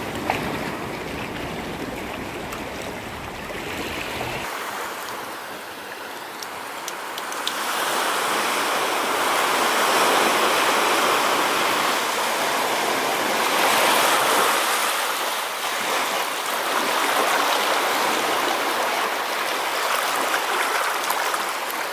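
Small waves washing up onto a sandy beach and shallow water lapping at the shore, swelling and easing as each wave comes in and draws back. A low rumble under it stops suddenly about four seconds in.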